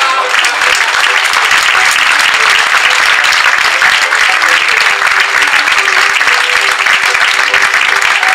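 Theatre audience applauding steadily at a curtain call, with faint music underneath.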